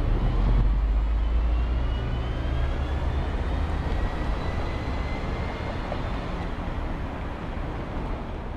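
Busy city street traffic: a steady rush of passing cars over a low bus engine rumble, which is loudest in the first few seconds and then eases. A faint whine slowly rises in pitch.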